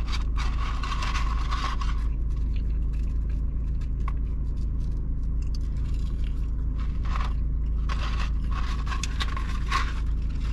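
Steady low hum of a car idling with the air conditioning running, with the rustle of a paper fry carton being handled and some chewing over it.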